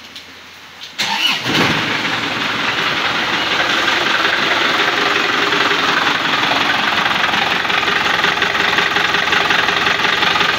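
Isuzu Panther LM diesel engine cranking and catching about a second in, then running rough with a loud clatter. The mechanic takes the noise for heavily worn timing gears, with badly worn engine mounts letting the engine shake.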